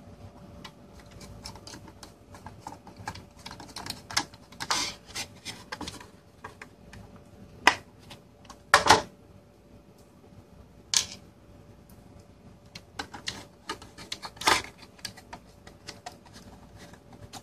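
Small screwdriver driving screws into a circuit board inside a plastic enclosure: irregular clicks, scrapes and taps of the tool against the screws, board and case, with a few sharper, louder clicks among them.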